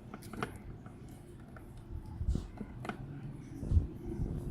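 Light clicks and knocks from a plastic window bird feeder being handled as rubber suction cups are pushed into its holes, with a louder dull thump near the end.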